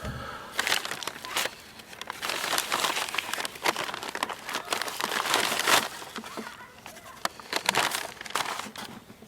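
Close crinkling and rustling of material being handled, in long bursts of dense crackle, with a quieter stretch about six to seven seconds in.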